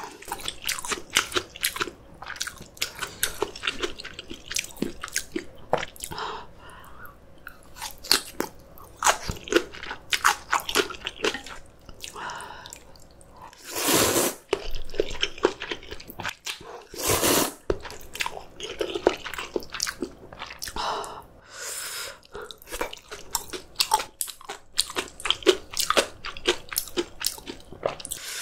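Close-miked crunching and chewing of kimchi, a dense run of quick, uneven crunches. Twice, about halfway through, a longer, louder stretch of noise stands out from the crunching.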